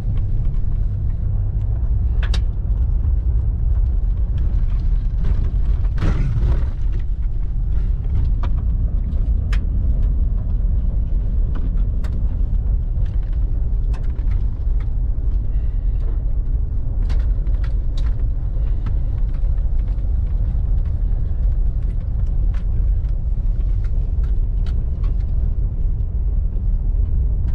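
Steady low rumble of a vehicle driving on a rough dirt trail, heard from inside the cabin, with scattered short knocks and rattles and a brief louder jolt about six seconds in.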